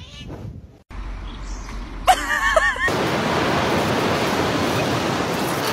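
Steady rushing noise of surf and wind, with no pitch or rhythm to it, starting about three seconds in. Just before it comes a short wavering animal cry.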